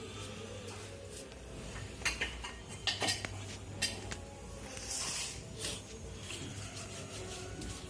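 Metal parts and tools clinking and clattering on a work surface, a cluster of sharp clinks in the middle followed by a short hiss, over a steady low hum.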